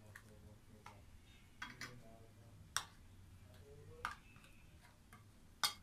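Metal spoon stirring a thick yogurt-and-spice marinade in a bowl, with light clinks of the spoon against the bowl at irregular intervals, roughly one a second, the loudest near the end.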